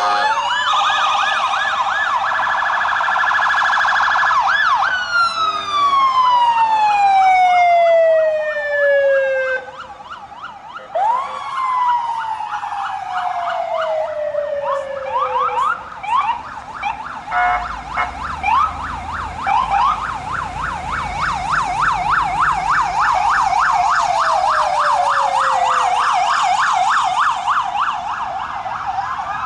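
Several police car electronic sirens sounding at once, overlapping wail and fast yelp tones, as a line of squad cars passes. Three times a siren winds down in a long falling glide, and from about halfway on a rapid yelp dominates.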